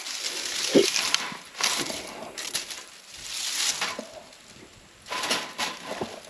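Dry leaves and brush crunching and rustling in several separate bursts as someone handles a stick and a wire-mesh cage trap on the leaf-littered ground.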